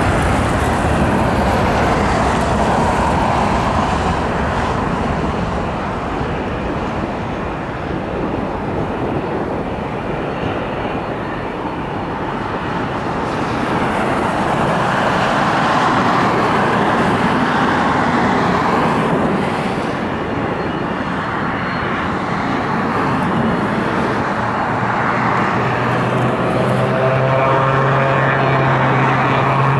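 Jet engine noise from a Boeing 737-700's two CFM56-7B turbofans at takeoff power as the airliner lifts off and climbs away; the sound stays loud, dipping slightly and swelling again. Near the end a steady low hum joins in.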